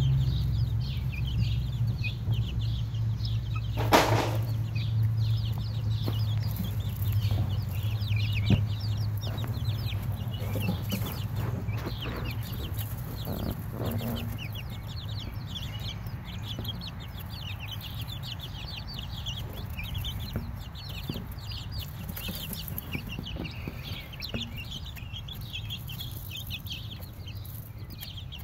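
A brood of baby chicks peeping, many short high-pitched peeps overlapping rapidly and without pause. A low hum fades out over the first dozen seconds, and there is a single sharp knock about four seconds in.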